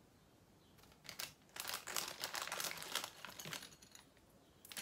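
Plastic packaging crinkling and rustling as small jewellery pieces are handled, a burst of about two and a half seconds starting about a second in, with a few brief rustles near the end.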